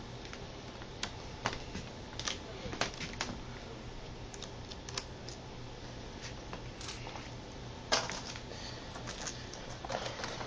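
Irregular light clicks and taps of a small screwdriver on the laptop's hinge screws and the plastic casing being handled, with a louder clatter about eight seconds in and another near the end.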